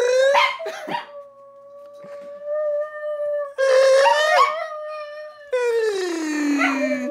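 Small dogs howling in three loud bursts, the last sliding down in pitch, over a person's steady, long-held howling note made with the mouth to set them off.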